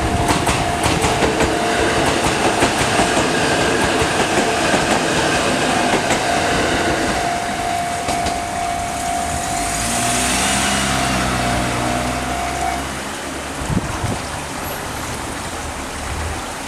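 E353 series limited express train passing over a level crossing, its wheels clacking over the rail joints during the first several seconds, while the crossing's warning alarm rings as a steady tone that stops about 13 seconds in. A low engine hum rises around ten seconds in.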